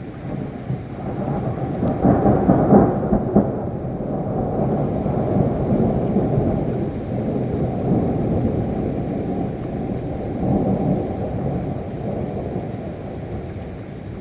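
Thunder rolling in a long low rumble with steady rain: it builds over the first couple of seconds, peaks with a few sharper cracks about three seconds in, swells again twice, and eases off near the end.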